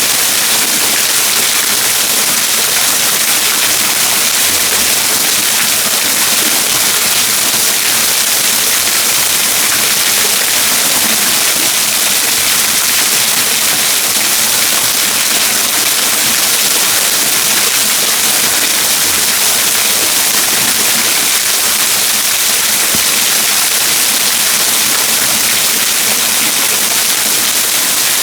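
Water of the Trettstein waterfall pouring and splashing: a loud, steady rushing hiss that does not change.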